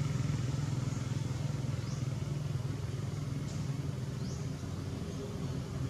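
A steady low engine hum, as from a motor running at a constant speed, with a few short, faint, high rising chirps over it.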